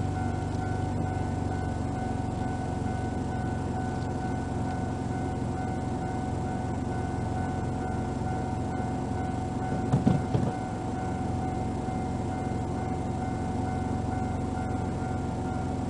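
Japanese railway level-crossing alarm ringing steadily over a Mitsubishi GTO Twin Turbo's V6 idling, heard from inside the car's cabin. A brief louder low burst about ten seconds in.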